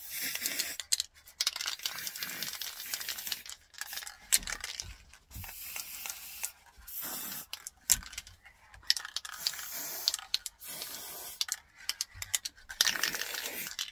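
Aerosol spray-paint can spraying black paint in a series of short bursts of hiss, with brief pauses and a few sharp clicks between bursts.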